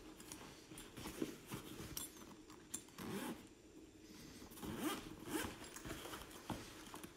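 Zipper being pulled open around a soft fabric tool bag, with rustling and light knocks as the bag is handled.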